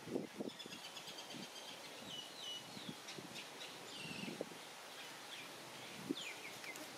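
Small birds chirping repeatedly, with soft short low knocks and rustles close by.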